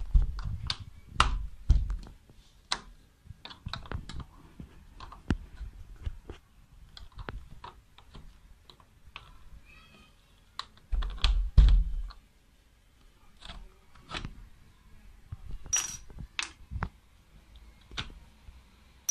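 A screwdriver clicking and scraping against the metal hinge fittings of a PVC window sash as the hinge tongues are levered out of their seats, in irregular sharp clicks. There are duller knocks of handling at the start and, loudest, around the middle, and two ringing metallic clinks a few seconds before the end.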